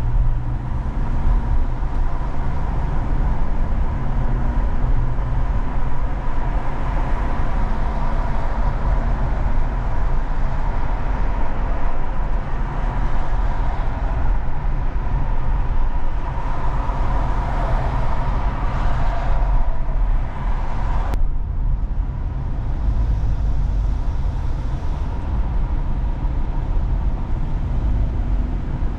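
Car driving on the road, a steady engine and tyre rumble. The higher hiss over it drops off suddenly about twenty seconds in.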